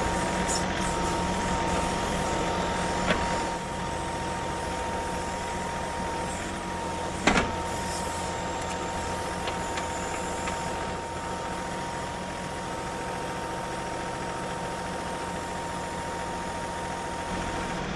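John Deere 2038R compact tractor's diesel engine running under hydraulic load as its backhoe digs a muddy ditch, with a steady whine over the engine. A single sharp knock about seven seconds in.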